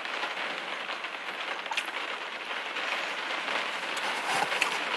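Steady rain falling on the car's roof, heard from inside the car, with a few short crunches of someone chewing battered fried food about two seconds in and near the end.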